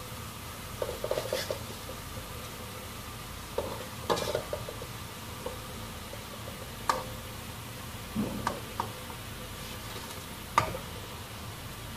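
Spatula scraping and clinking against a wok as small pieces of fried tempe are scooped out of hot oil, a handful of separate strokes with the last near the end the loudest. Oil sizzles steadily underneath.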